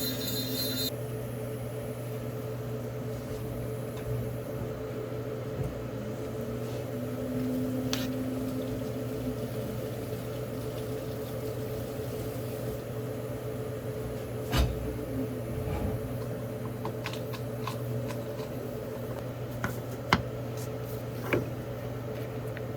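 A steady low machine hum running throughout, with a sharp knock about two thirds of the way in and a few light clicks near the end.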